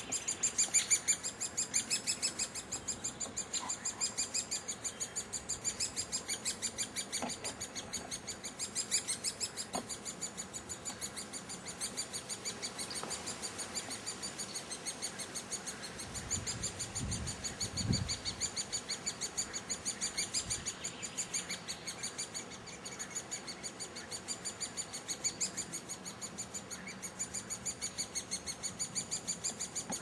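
Great spotted woodpecker nestlings begging from inside the nest hole: a steady, rapid series of high-pitched calls, several a second.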